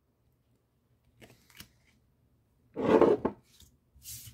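Handling of Pokémon trading cards on a desk: a few light clicks, then a loud short scuff and knock about three seconds in as the stack of cards is moved and set down, and a brief rustle near the end.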